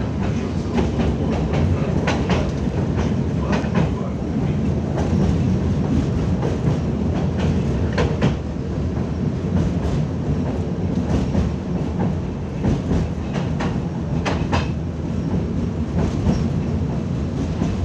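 Tatra T6A5 tram running along its track, heard from inside the car: a steady low rumble from the running gear, with irregular sharp clicks and knocks as the wheels pass over the rails.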